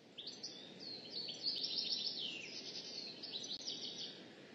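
Songbirds chirping in quick series of short falling notes, busiest through the middle and thinning out near the end, over a steady low background rush.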